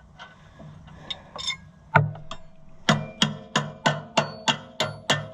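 Sharp metal-on-metal strikes, each with a brief ring: a single knock about two seconds in, then an even run of about three strikes a second while a clamp on the tractor's clutch assembly is worked loose.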